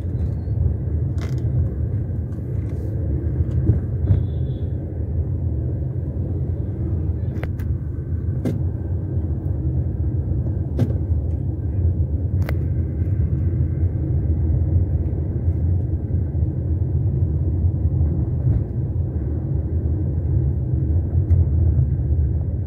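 Tata Nexon driving along a town road, heard from inside the cabin: a steady low rumble of engine and tyre noise, with a few brief clicks in the first half.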